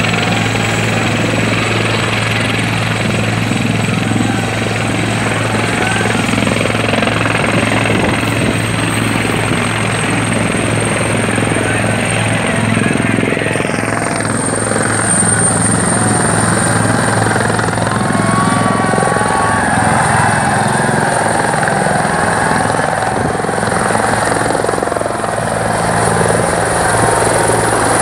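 Helicopter taking off: a steady rotor beat under a thin high turbine whine that rises a little about halfway through as power comes up. The aircraft lifts off near the end.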